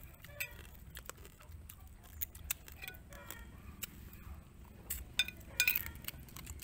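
Eating at the table: a metal spoon clinking lightly against a ceramic plate, mixed with short mouth clicks and smacks from chewing. The clicks come scattered, thickest about five to six seconds in.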